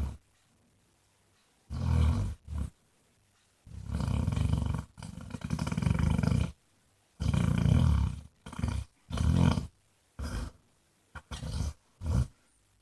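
Basset hound snoring loudly in rough, irregular bursts, the longest lasting about three seconds a few seconds in, then several shorter ones toward the end.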